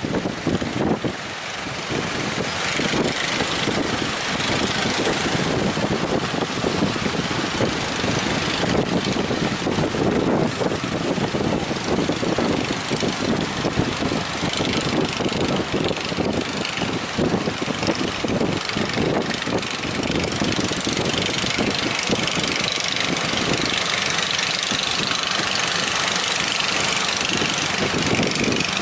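Fishing boat engine running steadily, mixed with a dense wash of noise.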